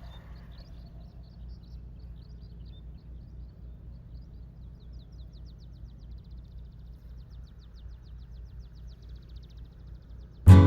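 Outdoor ambience: a steady low rumble, with a faint, high, rapid trill for several seconds in the middle. Acoustic guitar music starts right at the end.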